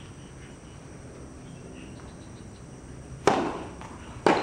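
Tennis ball being struck on the court: two sharp pops about a second apart near the end, over a quiet background.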